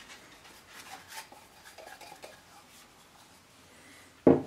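Coarsely crushed peppercorns, allspice, juniper berries and bay leaves tipped from a mortar onto raw rabbit pieces in a roasting pan, falling with faint light rattles and rustles. A loud knock near the end.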